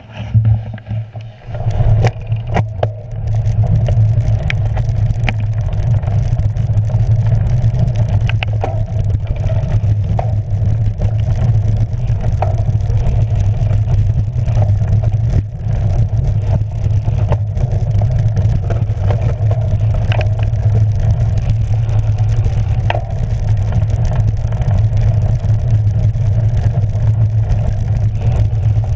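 Cyclocross bike riding over rough grass and gravel, heard through a handlebar-mounted camera: a loud, steady low rumble of tyre and frame vibration with scattered knocks and rattles from the bumps. It builds up over the first few seconds as the bike gets going.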